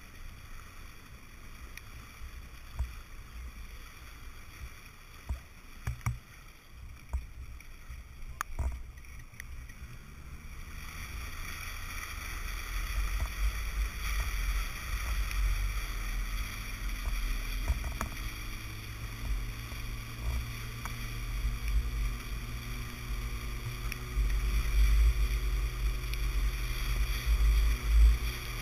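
Water rushing and splashing along the hull of an International 14 skiff under sail, over a low rumble of wind on the microphone. A few light knocks come early. About ten seconds in, the rush of water grows louder as the boat speeds up and planes.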